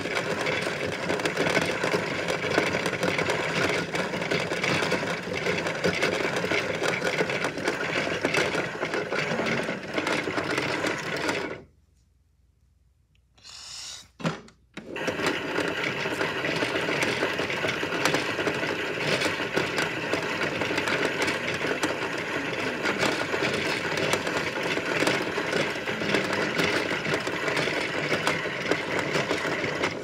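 Washmatic toy washing machine running, its small motor whirring steadily while the drum turns with a wooden Jenga block clattering inside. It stops for about three seconds a third of the way through, with a couple of faint knocks, then starts up again.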